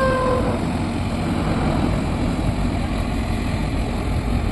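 A heavy machine's engine running steadily, with no change in speed.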